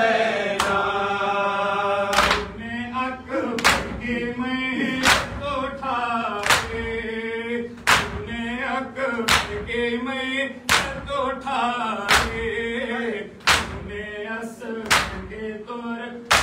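A group of men chanting a noha, a Shia mourning lament, while beating their bare chests with both hands in unison (do dasti matam). The loud slaps come about every second and a half, with lighter slaps between.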